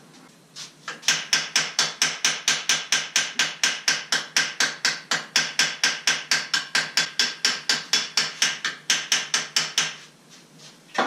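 A hand hammer striking metal rapidly and evenly, about four to five blows a second, each with a bright ringing tone. The blows run for about nine seconds and then stop.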